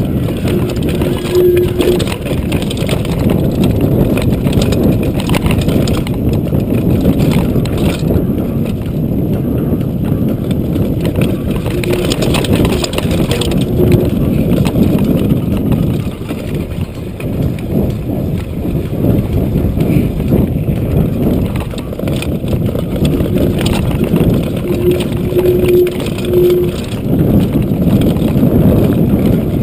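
Mountain bike riding fast down a rough dirt and gravel singletrack: a continuous rumble and rattle of knobby tyres and suspension over the ground, with a short faint hum now and then.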